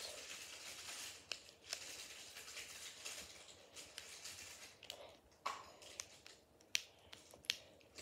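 Plastic 1x3x3 puzzle cube (floppy cube) being turned by hand: faint, irregular clicks and clacks as its layers are flipped.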